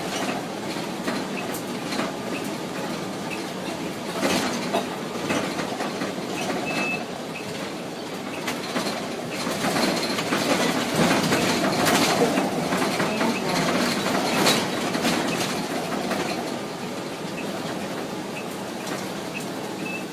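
On-board sound of a New Flyer XT60 articulated electric trolleybus accelerating along a city street: traction motor and road noise, with scattered rattles. It grows louder for several seconds around the middle.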